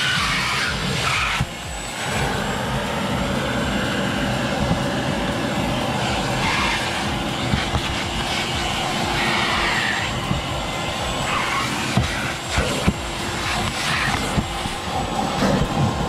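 Vacuum cleaner running steadily, its pitch swelling now and then as the nozzle is worked over carpet, with a few sharp knocks about three-quarters of the way in.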